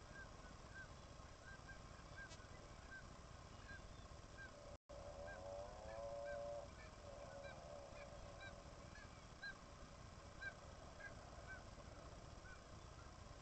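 Faint seabird colony on a bird cliff: many short calls repeating quickly and overlapping. Just after a brief cut-out about five seconds in, one louder, drawn-out honking call lasts about a second and a half.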